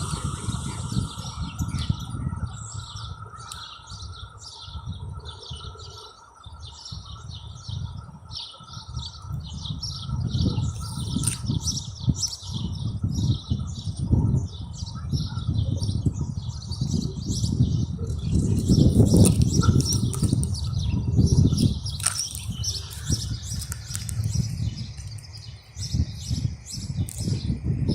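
Small birds chirping and twittering over a low, uneven rumble that swells and fades, louder in the second half.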